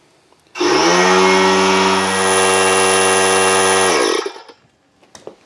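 Husky 3-gallon oil-free pancake air compressor's pump motor kicking on about half a second in, coming up to speed and running steadily, then slowing to a stop at about four seconds. It is refilling its small tank as the leak-down tester draws off air.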